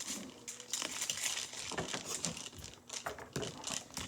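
Slime with a handful of plastic beads in it being mixed by hand: irregular crackling and clicking as the beads squash through the slime.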